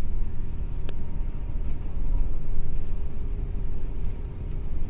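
Steady low rumble of a moving bus, engine and road noise heard from inside the passenger cabin, with a faint steady hum over it. A single sharp click comes about a second in.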